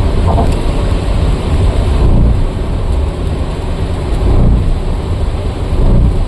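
Rain falling heavily, with a loud, uneven low rumble underneath.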